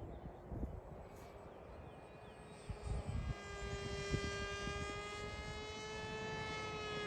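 Electric motor and propeller of a radio-controlled model plane flying by, a steady pitched hum that grows louder from about three seconds in. Wind buffets the microphone throughout.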